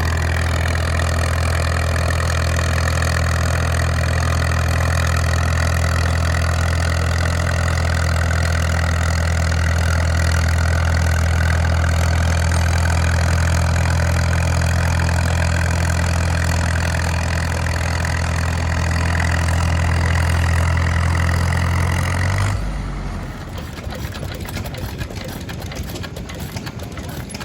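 Caterpillar Thirty crawler tractor engine running steadily at a constant pitch under a tractor pull. It stops abruptly about five seconds before the end, leaving a quieter background.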